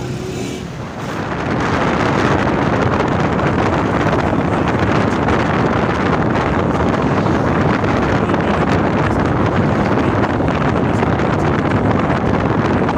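Loud, steady wind buffeting the microphone while riding on a moving motorcycle, swelling up about a second in as the bike picks up speed.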